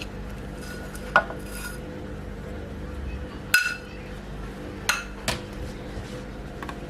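Cutlery and dishes clinking: a few separate sharp clinks, one with a brief ringing tone, over a faint steady hum.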